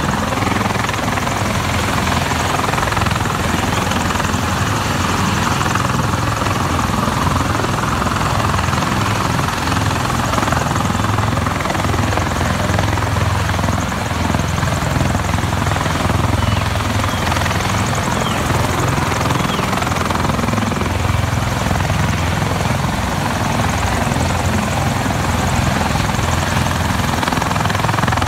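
USMC CH-53E Super Stallion heavy-lift helicopter running steadily on the ground, its turboshaft engines and rotor making a loud, unbroken noise.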